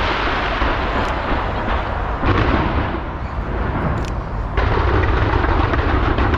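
A large fireworks display launched from a skyscraper, with dense continuous crackling and banging. It swells about two seconds in, eases off briefly, then grows louder and heavier again from about four and a half seconds in.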